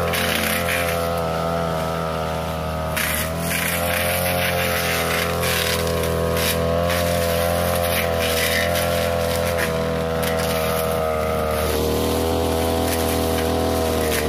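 A 42cc backpack brush cutter engine runs at high revs while its blade cuts through thick weeds and brush. The steady engine whine sags slightly about three seconds in and settles a little lower near the end.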